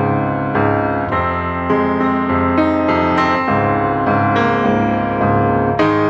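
Background music led by piano, with new notes and chords struck about twice a second.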